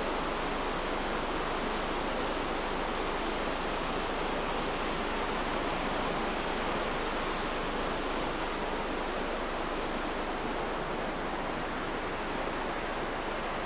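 Steady, even rushing noise with no distinct events, unchanged across the whole stretch.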